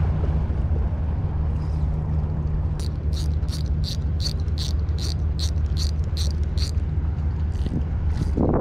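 Wind buffeting the microphone, with a run of about a dozen light, evenly spaced clicks in the middle, nearly three a second, from the spinning reel being worked.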